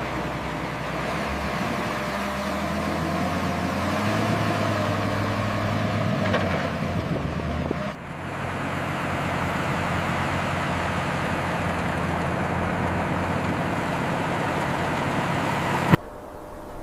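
Heavy lifting machinery's engine running steadily under load. The sound breaks off briefly about halfway through, then cuts off suddenly near the end.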